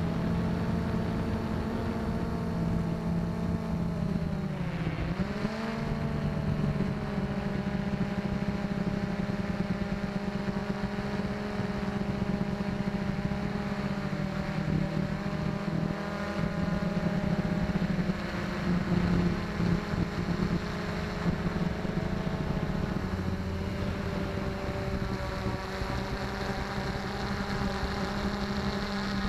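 XK X380 quadcopter's motors and propellers whining steadily, heard through its onboard camera. The pitch dips briefly about five seconds in, then climbs back.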